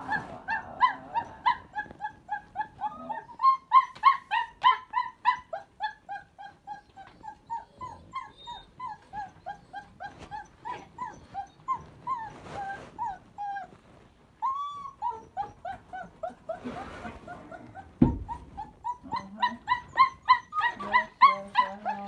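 Three puppies crying without pause in short, rapid, high-pitched yelps and whimpers, several a second, complaining to be let out of their room rather than from hunger or cold. A couple of brief swishing noises sound midway, and there is a single low thump near the end.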